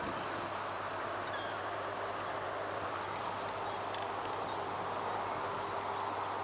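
Steady outdoor background hiss with a low hum, and a few faint, short bird chirps scattered through it.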